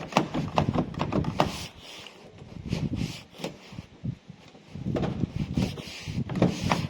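Repeated sharp clicks and knocks from a Honda Civic door's lock, latch and handle being worked by hand, in two clusters, as a freshly replaced door lock actuator is tried out.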